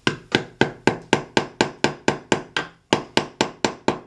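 Small metal-headed hammer tapping the wooden handle of a V-chisel in quick, even strikes, about four a second, as the chisel cuts a curved letter into a hardwood breadboard.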